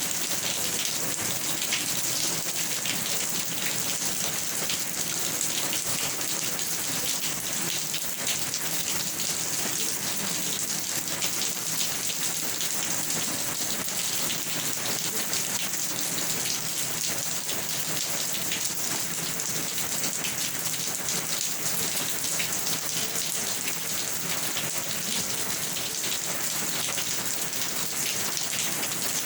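Steady rain falling, an even hiss of many drops that does not let up.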